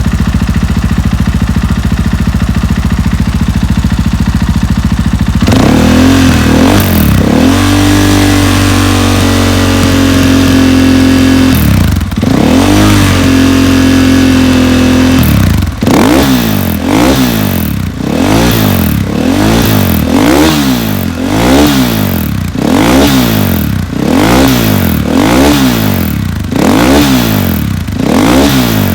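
2020 KTM 500 XCF-W single-cylinder four-stroke dirt bike engine, breathing through an FMF Q4 muffler (FMF's quietest), idling steadily. About five seconds in it rises to a held higher rpm, dips briefly, holds again, then is blipped in quick throttle revs about once a second.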